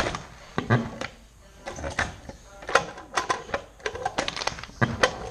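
Irregular sharp clacks and knocks of hand tools at work, a few a second and sometimes in quick clusters.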